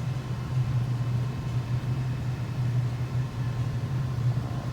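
HVAC air-handling unit running: a steady low rumble from its fan, with a faint steady higher tone above it.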